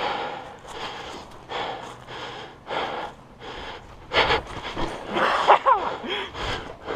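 Heavy breathing close to the microphone, a run of short puffs of breath, with a brief vocal cry about five and a half seconds in.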